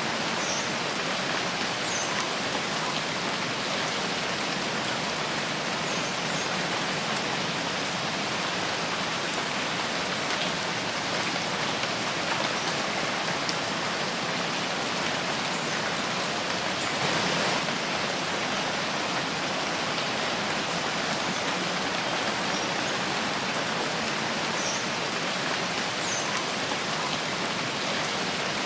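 Steady rain falling in a forest, an even hiss of many drops, with a brief slight swell about two-thirds of the way through.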